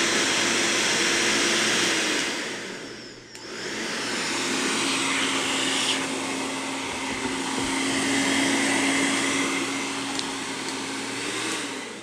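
Handheld hair dryer running with a steady rush of air and motor hum. It dips briefly about three seconds in, then runs on with its hum slightly lower until shortly before the end.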